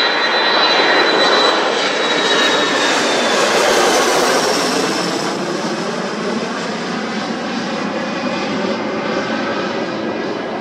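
Jet2 Boeing 737's twin CFM56 turbofan engines passing low overhead and drawing away: a dense jet rush that is loudest about a second in and slowly fades, with a high whine that falls gently in pitch as the aircraft recedes.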